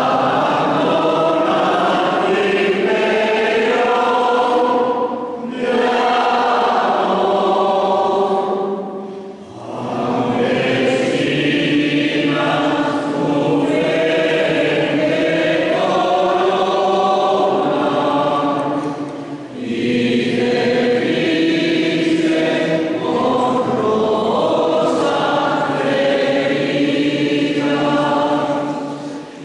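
Choir singing a religious hymn in long sustained phrases, with short pauses between verses about five, nine and nineteen seconds in.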